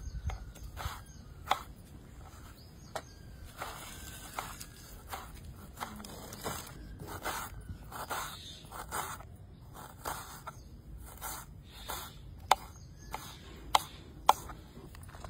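Kitchen knife slicing tomato and dicing a red onion on a wooden chopping board: irregular taps of the blade meeting the board, with a few sharper knocks near the end.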